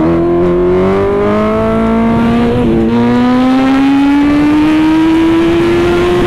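Kawasaki sport motorcycle engine pulling under acceleration, its note climbing steadily. It breaks off briefly and drops a little about three seconds in as the rider shifts up a gear, then climbs again.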